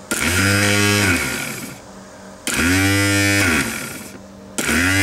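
Briggs & Stratton small-engine electric starter motor, freshly fitted with a new brush plate, run three times off a battery on the bench: each time it spins up with a sudden whirring whine, runs for about a second and winds down in pitch when the power is cut. It spins freely under power, showing that the new brushes are making contact.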